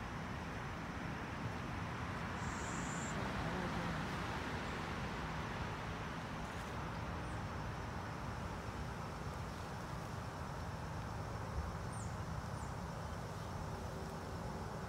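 Steady rushing hum of distant road traffic, with a faint high insect drone and a few short, high chirps: one about two and a half seconds in and two close together near the end.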